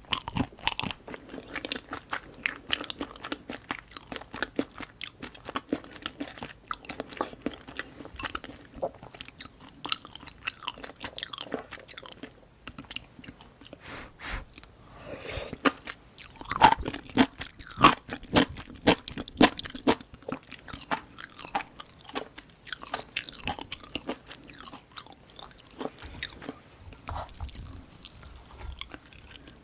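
A person chewing and biting food close to the microphone: a continual run of wet mouth sounds and small crunches, with the loudest bites a little past halfway.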